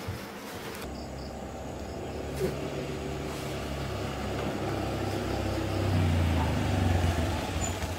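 Small motor scooter engine running as the scooter rides up close. It grows steadily louder over several seconds, then eases off near the end.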